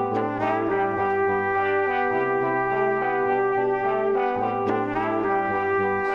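Background music: sustained chords over a low bass line that shifts note every second or two.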